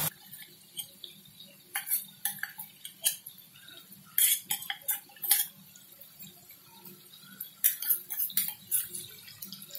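Sparse, irregular light clicks and clinks of cookware at a frying pan of shrimp in ghee, over a faint low hum.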